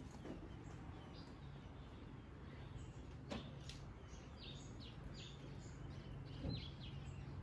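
Faint bird chirps, many short high calls, over a low steady background hum, with a single sharp click about three seconds in.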